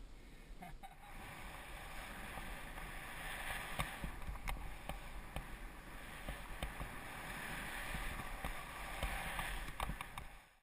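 Skis hissing and scraping through snow on a downhill run, with scattered small clicks and knocks and a low wind rumble; the sound swells about a second in and cuts off suddenly near the end.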